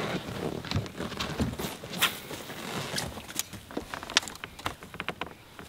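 Irregular knocks, clicks and rustles of people moving about and handling gear on the deck of a small fishing boat.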